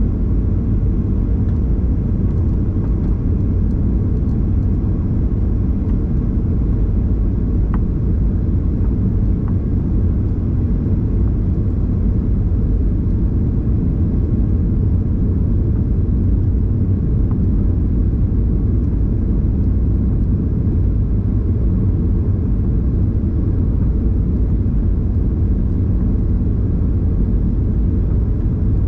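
Steady low roar of a Boeing 737's engines and airflow heard from inside the passenger cabin during the approach to landing.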